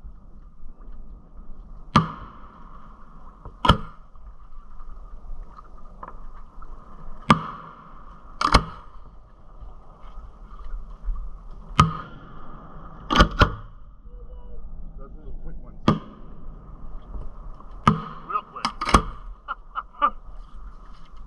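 Fireworks going off: about a dozen sharp bangs at uneven intervals, two of them close together about halfway through, and a quick run of smaller crackling pops near the end.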